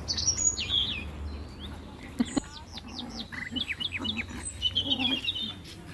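Songbirds chirping outdoors: a string of quick, high, falling notes through the middle, a fast twittering trill near the end, and a single sharp tap a little over two seconds in.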